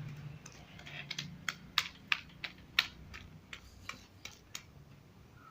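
Irregular sharp clicks and taps, about a dozen over four seconds, from slime being handled in a plastic container. The loudest come around two to three seconds in.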